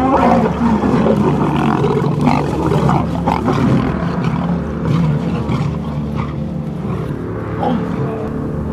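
A pride of lions growling as they attack a Cape buffalo, growing quieter after about six seconds.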